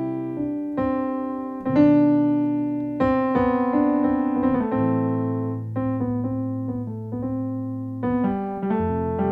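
Piano playing a slow gospel chord progression in C with added extensions, the 1–7–6–4–1 movement. Each chord is struck and left to ring and fade before the next.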